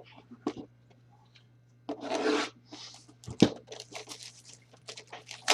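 A trading-card pack's wrapper is torn open about two seconds in, with a second short tear about a second later. Then comes a sharp knock, followed by the rustling and clicking of the cards being handled.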